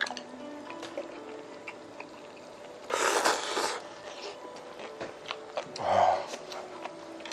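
A person slurping spicy hot pot broth from a small bowl: one loud slurp about three seconds in, with light chewing and chopstick clicks around it. A short breathy exhale follows about six seconds in.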